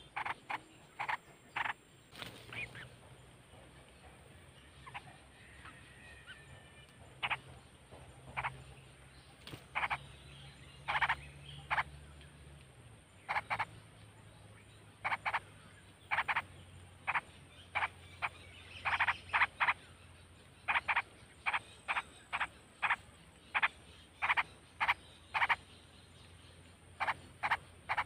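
Short animal calls repeated irregularly, singly and in quick clusters about once or twice a second, over a faint low hum.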